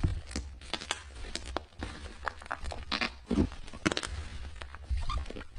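Slime being squished and stretched, making irregular pops, clicks and crackles.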